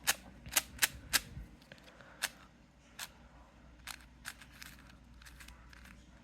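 Layers of a magnetic MFJS Meilong 4x4 M speed cube being turned by hand: sharp plastic clicks, four in quick succession in the first second, then sparser and fainter ones.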